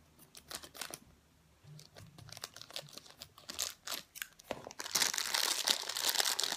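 Plastic packaging bags crinkling as they are cut and pulled open, with scattered rustles and clicks at first and a dense stretch of crinkling near the end.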